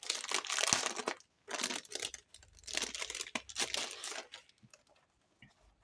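A packet of sticker sheets being torn open and its packaging crinkled by hand, in three bursts over the first four and a half seconds.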